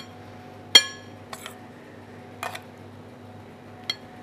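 Metal spoon clinking against a stainless steel saucepan and a porcelain plate as foam is spooned out: several light clinks, the loudest about a second in, over a steady low hum.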